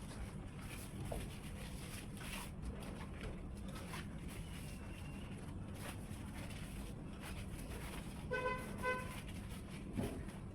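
Steady low background rumble, with a vehicle horn sounding two short toots about eight seconds in.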